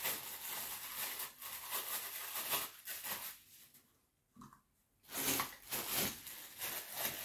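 Plastic packaging crinkling and rustling as it is handled, in short irregular crackles, with a break of near silence about four seconds in.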